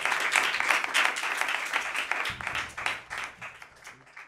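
A group applauding, a dense run of hand claps that fades out toward the end.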